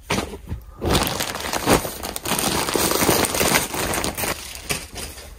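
A plastic mailing bag crinkling and rustling as it is torn open and handled, a dense papery rustle with a few sharp crackles.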